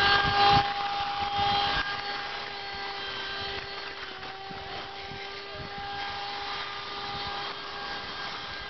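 Steady hum of a corded electric garden power tool's motor running. Louder knocks and rustling noise in the first two seconds.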